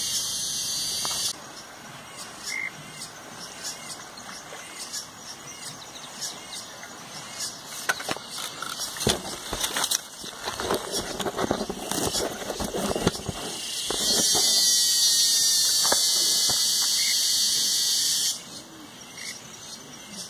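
Cicada buzzing loudly and steadily, cutting off about a second in, then starting again around fourteen seconds in and stopping abruptly about four seconds later. In between there are scattered rustling and knocking sounds.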